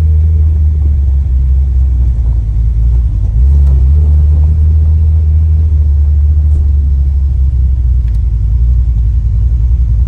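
Fox-body Ford Mustang engine running at a steady idle, a deep even rumble heard up close, with a slight rise in level about three and a half seconds in.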